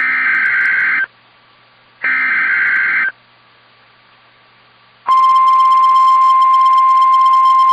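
NOAA Weather Radio Emergency Alert System signal for a tornado watch: two SAME digital header bursts, each about a second of rapid warbling data tones, a second apart. About five seconds in, the steady 1050 Hz warning alarm tone begins and holds.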